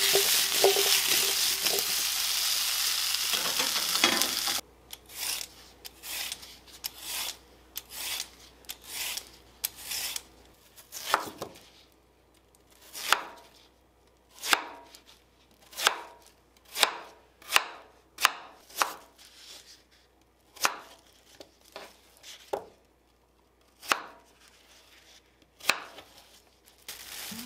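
Nagaimo cubes sizzling in a frying pan for the first four seconds or so, then a knife slicing through a peeled nagaimo on a cutting board: a long run of separate sharp cuts, roughly one a second.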